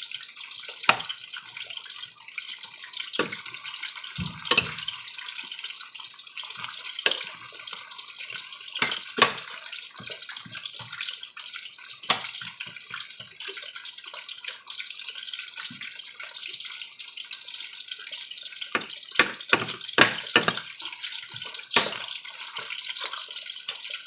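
Onions, red bell pepper and tomatoes sizzling in oil in a pan, a steady hiss, with a utensil knocking against the pan every few seconds as the vegetables are broken down, several knocks in quick succession near the end.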